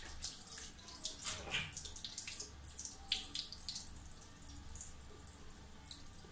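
Water from a tap splashing unevenly into a bathroom sink.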